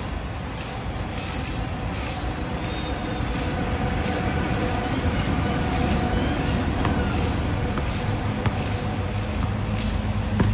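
A steady rhythmic high hiss, pulsing about three times every two seconds, over a low hum, with a few sharp basketball bounces on the court near the end.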